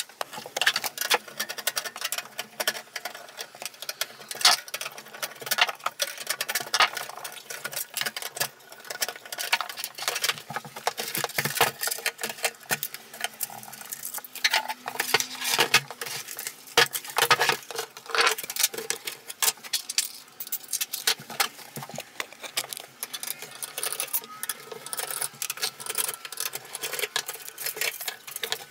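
Dense, irregular clicks, taps and rattles of hands working on a PC case: handling the metal case and taking out a case fan with a screwdriver.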